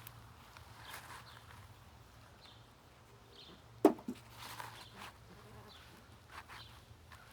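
Hands digging through potting soil in a potato pot: rustling and scraping, with one sharp knock about four seconds in.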